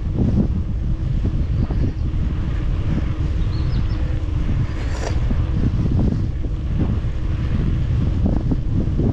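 Wind buffeting the camera microphone during a mountain-bike ride, a loud, uneven low rumble.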